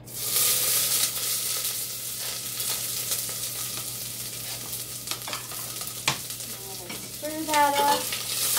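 Chopped onions dropped into hot olive oil in a pot burst into a loud, steady sizzle at once, fried over heat the cook thinks might be too high. A wooden spoon stirs them, with a sharp knock a few seconds in and a short pitched squeak near the end.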